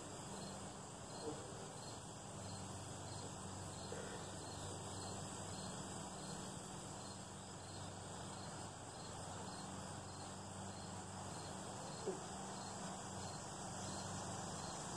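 Faint, steady insect chirping with a light even pulse, and a brief soft sound a little over a second in and again about twelve seconds in.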